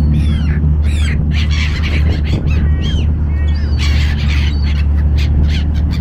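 Many gulls squawking and crying in quick succession over the ferry's steady low engine drone.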